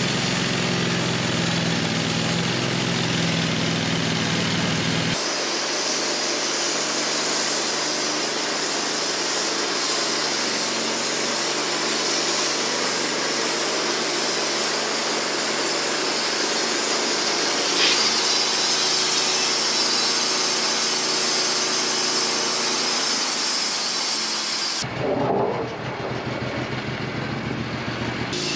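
Wood-Mizer LT15 portable band sawmill running, its band blade cutting through a hard maple log with a steady engine-and-saw noise. The sound changes abruptly a few times.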